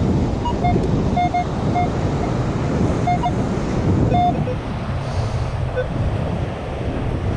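Wind buffeting the microphone over beach surf, with a metal detector giving a string of short beeps, most of them in the first few seconds, as it is swept over a buried target.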